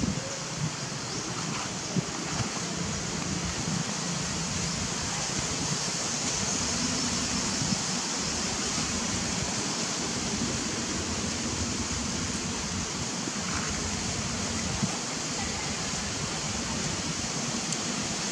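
Steady, even outdoor rushing noise with a few faint clicks.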